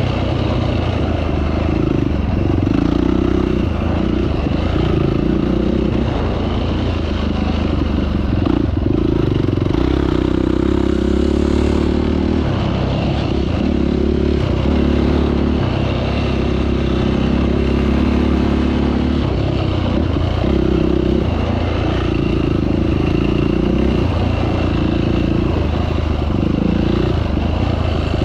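Off-road vehicle engine running continuously while riding a dirt trail, the throttle rising and easing now and then.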